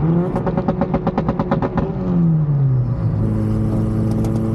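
Turbocharged Honda K24 engine in a Subaru Impreza revving, with a rapid chatter of about a dozen pulses a second for about a second and a half, then the revs falling back to a steady run.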